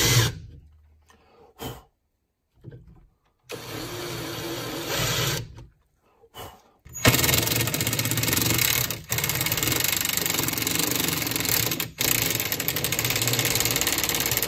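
Cordless impact driver driving a screw through a cabinet face frame into the neighbouring cabinet: a loud run of rapid hammering for about eight seconds in the second half, with two very brief pauses. Before it, a cordless drill with a countersink bit stops just after the start, followed by quieter, shorter bursts of tool noise.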